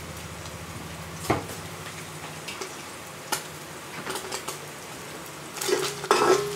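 Chopped garlic sizzling in oil in a metal wok, with a couple of sharp clicks and pops. Near the end a metal spatula starts stirring and scraping the wok, and the sizzling gets louder.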